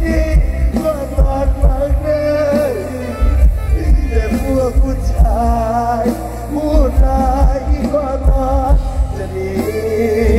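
Mor lam band music: a heavy, steady bass-and-drum beat under a wavering melody line with a singing voice.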